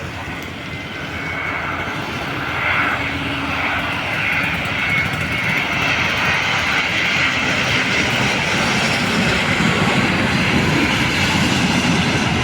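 Airliner's engines growing steadily louder as the aircraft approaches.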